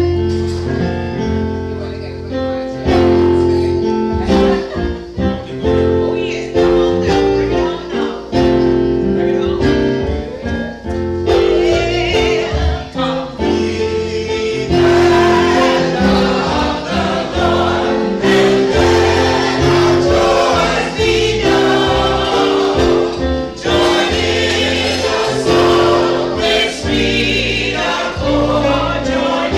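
Gospel-style choir singing with an instrumental accompaniment under steady, held bass notes.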